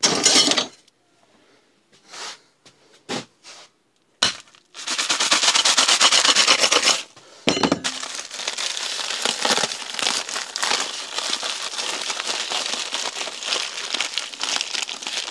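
Packing material being handled and torn open: a few short rustles, then loud crinkling for about two seconds from about five seconds in, and steady crinkling and rustling after that.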